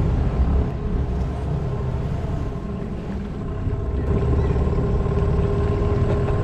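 Small boat's outboard motor running steadily, a constant drone with a low rumble that dips slightly in loudness partway through.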